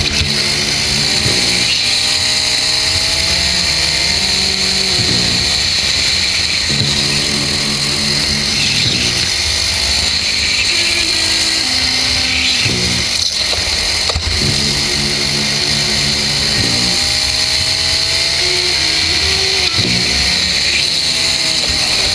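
Racing kart engine heard from on board, climbing in pitch as it revs out and then dropping back sharply, over and over, as the kart accelerates and slows through the corners. Steady hiss runs underneath.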